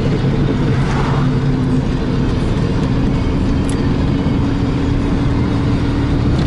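Turbocharged car's engine running steadily under way, with road noise; its tone steps up in pitch a little over a second in.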